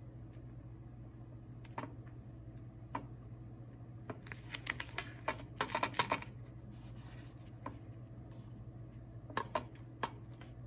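Hands handling a vinyl mag wrap as it is peeled and nudged into position on an AR-15 magazine: scattered small ticks and scratches, with a denser crackle of rustling about four to six seconds in.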